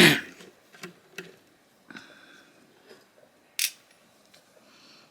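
Light clicks and taps of small knife screws and a Torx driver being handled over a parts tray, with one sharper click about three and a half seconds in. A short loud noisy burst sounds right at the start.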